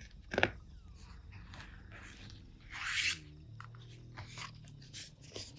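Page of a picture book being turned by hand: a sharp handling tap near the start, then a brief paper rustle about three seconds in.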